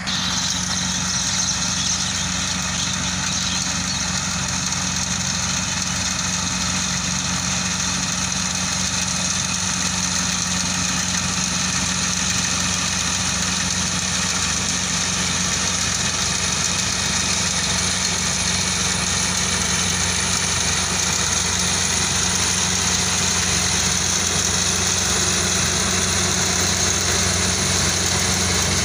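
Tracked rice combine harvester running steadily as it cuts and threshes, a constant engine hum with a high steady hiss above it, growing slightly louder toward the end.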